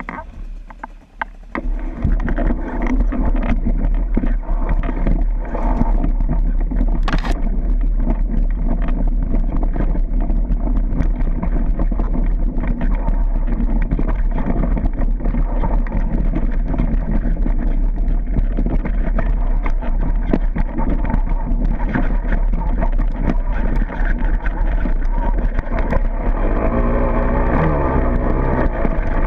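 Dirt bike engine running on a rough, rocky downhill ride, with many short knocks and rattles. About a second and a half in it suddenly gets louder, and near the end the engine pitch rises and falls as it revs.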